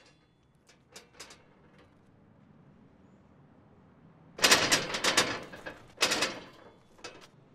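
Metal barred security gate rattling as it is shaken by hand: a few faint clicks at first, then two loud bursts of clattering strokes about four and six seconds in.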